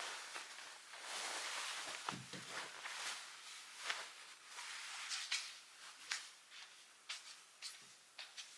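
Quiet handling noises: a short rustle about a second in, then a scatter of small clicks and taps, as of light objects being picked up and set down.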